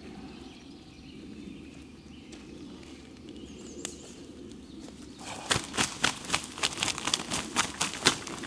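Footsteps through forest-floor leaf litter, beginning about five seconds in: quick, even steps, about three a second, growing louder as the walker comes closer. Before them only a faint low outdoor background.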